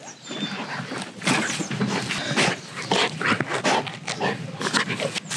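A pet dog vocalizing in a quick series of short sounds, one after another.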